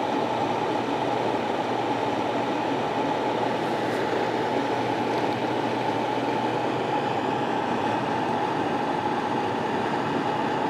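Dynatrap XL insect trap's electric fan running with a steady, even whirring hum.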